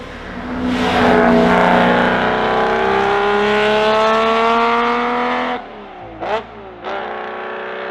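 Ferrari 250 Europa Vignale's V12 accelerating hard, its note rising steadily for about five seconds. The throttle then lifts suddenly, two quick revs follow a little over half a second apart, and the engine pulls again, quieter and climbing.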